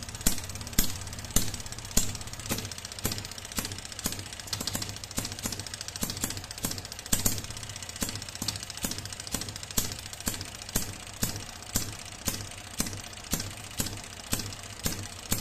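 Homemade single-cylinder two-stroke model engine of about 12 cm³ running slowly near its minimum speed, firing in sharp regular pops a little under two a second with weaker beats between, over a steady low hum.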